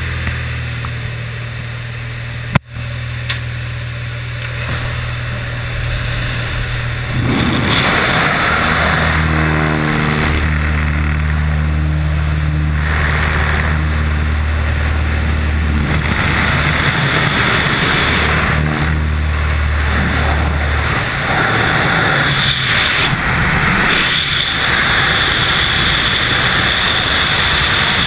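Single-engine light aircraft's engine and propeller droning steadily, heard from inside the cabin. About seven seconds in, a loud rush of wind joins the drone at the open door, and after about twenty seconds the engine tones drop away, leaving only the steady rush of freefall wind over the microphone.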